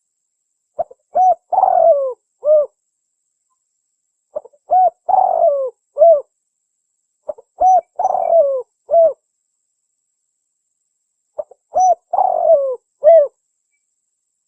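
Spotted dove (tekukur) cooing: four phrases, each a quick lead-in note followed by a few coos with a longer rolling coo in the middle, repeating about every three and a half seconds. It is a recorded lure call of the kind played to draw in and provoke other spotted doves.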